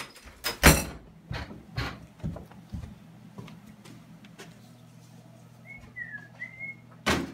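A series of knocks and thumps, the loudest about a second in and again near the end, over a low steady hum. From about six seconds in, a person whistles a few short, gliding notes of a tune.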